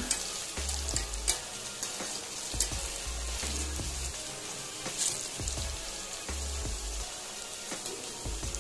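Raw banana slices deep-frying in hot oil in a kadai: a steady sizzle with scattered sharp crackles, while a wire skimmer stirs them.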